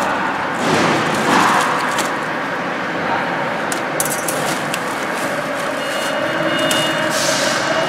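Steady mechanical background noise, with scattered clicks and crinkles as flexible aluminium foil duct and a metal hose clamp are handled. A faint steady hum comes in about three quarters of the way through.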